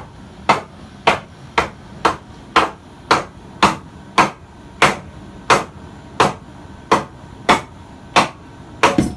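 Steady hammer taps, about fifteen sharp strikes at a little under two a second, driven through a piece of wood onto a generator's stator housing to work it back off the engine.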